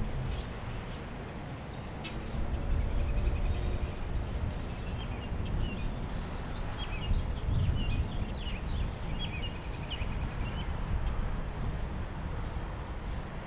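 Small birds chirping and calling many times, over a low, uneven rumble.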